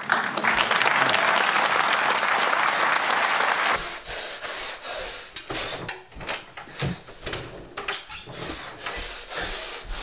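Studio audience applauding for about four seconds before it cuts off abruptly. After that come irregular knocks, thumps and rubbing sounds of someone moving about a room.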